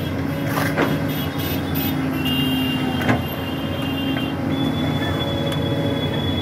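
Tracked hydraulic excavator's diesel engine running steadily while it digs, with a high steady whine over the engine. Two sharp knocks of the bucket come about one and three seconds in, the second the loudest.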